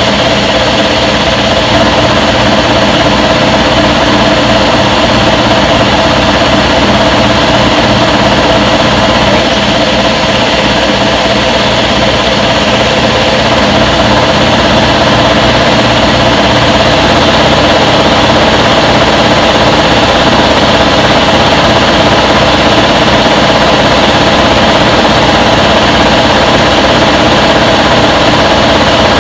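Front-load washing machine in its spin cycle: a loud, steady motor whir with a constant hum.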